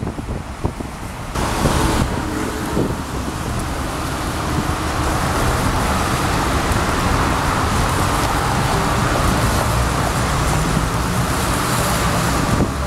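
Wind buffeting the microphone for about the first second and a half, then steady road traffic on a rain-soaked street: cars passing with a continuous hiss of tyres on wet road.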